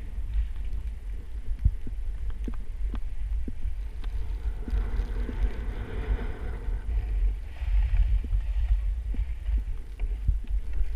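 Wind buffeting the microphone of a skier's body-worn camera during a downhill run, a low fluttering throughout, with the skis scraping and hissing over packed snow, loudest about halfway through.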